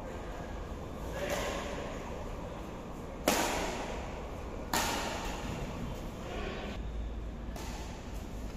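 Badminton rackets hitting a shuttlecock in a rally, echoing in a large hall. Two sharp hits come about a second and a half apart, the first the loudest, with fainter hits before and after.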